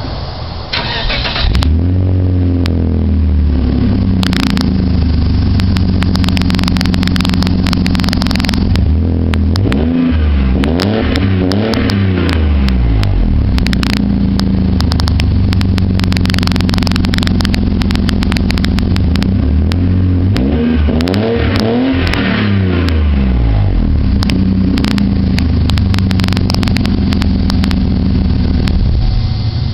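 Exhaust of a 1996 Volvo 960's straight-six engine, the rear muffler replaced with straight pipe. The engine idles and is revved up and back down a few times, with two longer revs in the middle stretch.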